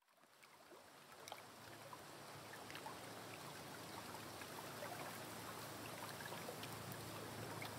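Faint lake water lapping and trickling among riprap rocks at the water's edge, with small scattered splashes and clicks, fading in over the first couple of seconds.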